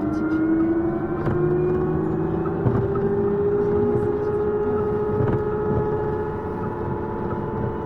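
City bus pulling away from a stop, heard from inside: its drive tone rises in pitch for about five seconds, then holds steady as it cruises, over the rumble of the cabin with a few light rattles.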